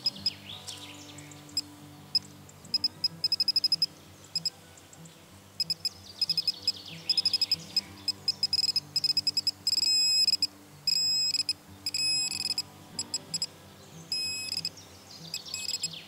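Handheld metal-detecting pinpointer beeping as it is probed through dug soil, its beeps coming in quickening runs and merging into an almost steady tone about ten seconds in as it closes on buried metal. Soft background music with low held notes underneath.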